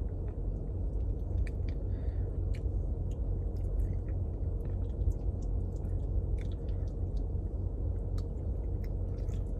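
Steady low rumble inside a car cabin, with faint scattered clicks and smacks from a person eating mac and cheese: a fork scraping the cup and chewing.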